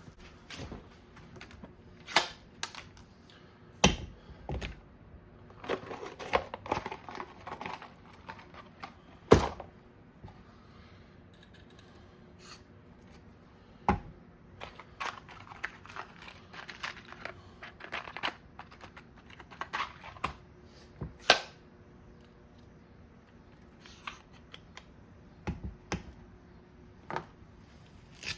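Hand tools being handled and positioned: a scattered run of sharp clicks, taps and knocks, with two louder knocks about nine and twenty-one seconds in.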